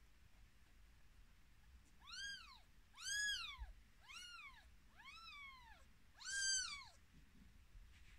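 Three-week-old Birman kittens mewing: five high, thin mews about a second apart, starting about two seconds in, each rising and then falling in pitch.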